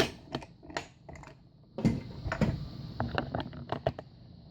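Irregular metal clicks and taps from handling a large six-pin Lockwood padlock and lock picks, quickening in the second half.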